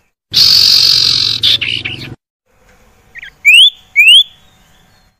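Common iora (cipoh) calls: a loud, harsh, rasping call lasting nearly two seconds, then after a pause two clear whistles that each rise in pitch.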